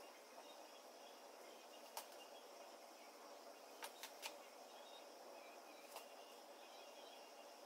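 Near silence: faint steady room hiss with a few soft clicks, one about two seconds in, three in quick succession about four seconds in, and one about six seconds in.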